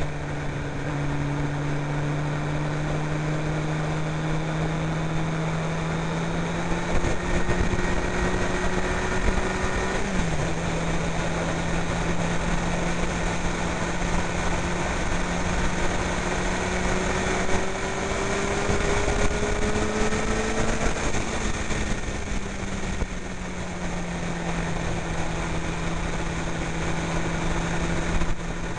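Honda CBR sportbike engine running at steady cruising revs, heard from on the bike with wind and road noise. The engine note climbs slowly, dips briefly and comes back about ten seconds in, then drops to a lower steady note a little after twenty seconds.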